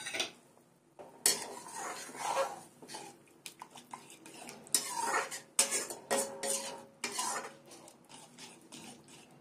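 Metal ladle stirring thick tomato masala gravy in a metal kadhai, scraping and clinking against the pan in an uneven run of strokes, with the sharpest clinks about five to seven seconds in.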